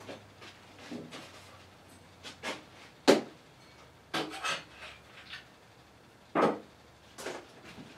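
Irregular knocks, clatters and rubbing of tools and parts being handled at a workbench, with a sharp knock about three seconds in and another about six and a half seconds in.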